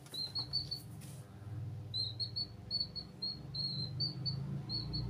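Domestic chicks peeping: a quick run of short, high peeps, a pause of about a second, then a steady string of peeps several a second.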